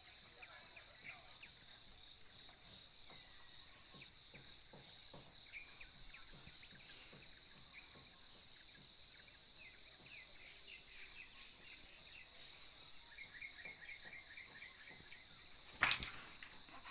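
Steady high-pitched insect chorus, with scattered faint ticks and a short run of quick chirps about thirteen seconds in. A sharp knock comes near the end.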